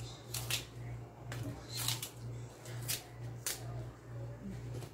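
Taro stems being peeled by hand, the fibrous skin stripped off in several short tearing rasps, over a steady low hum.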